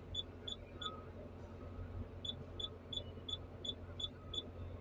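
Excavator diesel engine idling as a low steady hum heard inside the cab, with short high electronic beeps repeating about three times a second: a run in the first second and another from a little past two seconds, from the cab monitor as its buttons are pressed.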